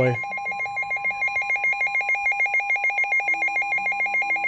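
Weather alert radio sounding its alarm: a rapid warbling electronic tone that flips quickly between a low and a high pitch over a steady whistle-like tone, with faint lower tones joining near the end.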